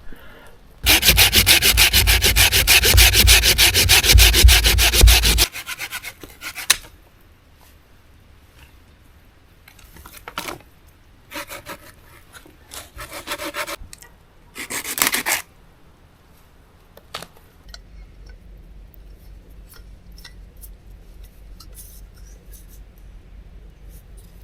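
Loud, close rubbing or scraping made of rapid, even strokes. It lasts about four and a half seconds, then comes back several times in short bursts over a faint steady hiss.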